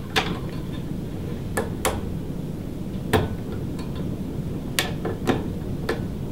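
About six scattered sharp clicks and taps as electrical wires are pushed into the built-in wire clips of a recessed can light's junction box.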